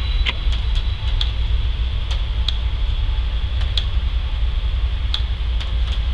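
Steady low engine rumble with a steady high-pitched hum above it and scattered irregular sharp ticks.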